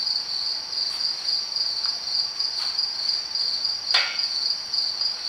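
A cricket chirping in a steady, fast pulsing trill. About four seconds in there is one sharp knock as a metal engine part is handled on the steel table.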